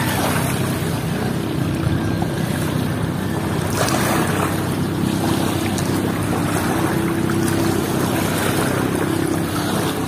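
A boat engine running steadily with a low hum, over wind on the microphone and lake water moving around a bamboo raft.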